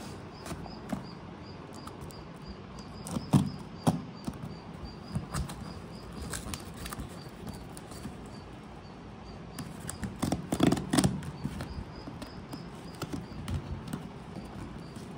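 Cardboard shipping box being handled and pried open by hand: scattered rustling, scraping and tape-tearing noises, loudest in clusters about three seconds in and about ten seconds in.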